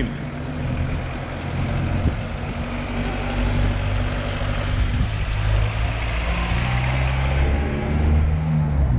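A car engine running close by, its pitch shifting up and down in steps, over a steady hiss of wind and road noise.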